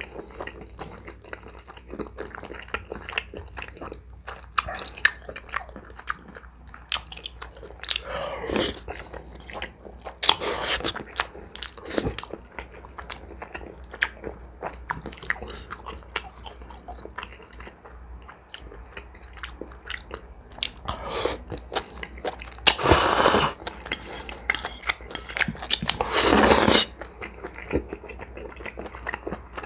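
Close-miked chewing and wet mouth sounds of eating soft spicy spaghetti noodles, with four louder slurps of noodles, the two loudest in the last third.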